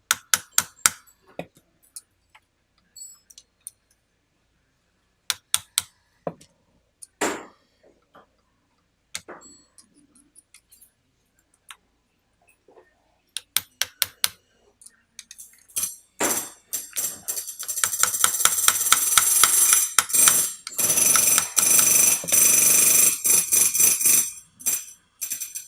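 A brass hammer striking a pin punch to drive steel roll pins out of a rivet squeezer head held in a vise: separate sharp metallic taps at first, then from about two-thirds of the way through a fast, steady run of taps with ringing metal.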